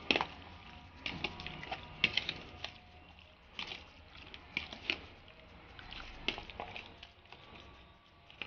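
A spoon stirring chunks of mutton coated in yogurt, turmeric and salt in a plastic bowl: wet squelching broken by irregular clicks of the spoon against the bowl.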